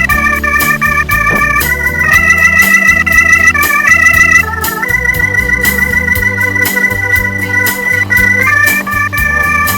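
Electronic organ music: held chords that change every second or so over a bass line, with a light steady beat.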